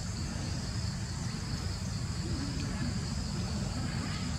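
Steady high-pitched insect droning over a constant low rumble.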